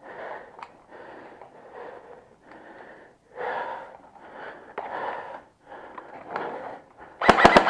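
Heavy breathing close to the microphone: a run of hoarse puffs in and out, about a second apart. Near the end comes a rapid run of sharp clicks.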